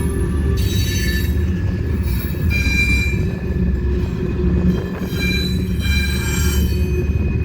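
Train rolling past with a steady heavy rumble of wheels on rail, broken by several bouts of high-pitched steel wheel squeal.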